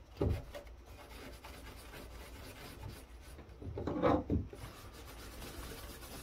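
A cloth rubbing dry, crusty thermal compound off the chips of a circuit board: a soft, even scrubbing, with a brief louder swipe right at the start and a longer, harder stretch about four seconds in.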